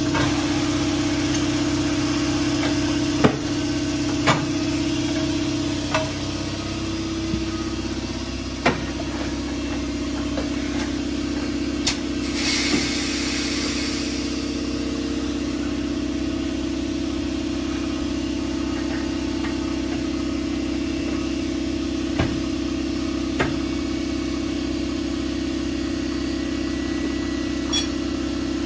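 Shop air compressor running with a loud, steady drone, the pitch settling slightly lower about seven seconds in. Scattered sharp knocks come through it, and there is a brief hiss about twelve seconds in.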